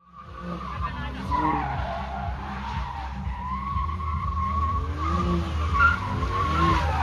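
BMW M4's twin-turbo straight-six revving up and down as the car drifts, its rear tyres squealing with a wavering pitch. The sound fades in over the first second.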